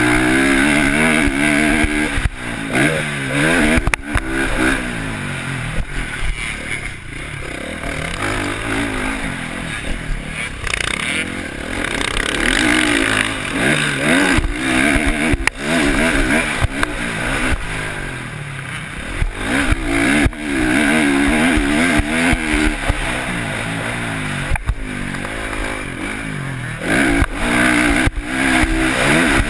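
Motocross dirt bike engine revving hard and easing off again and again as it runs along the track, with wind noise and sharp knocks from bumps.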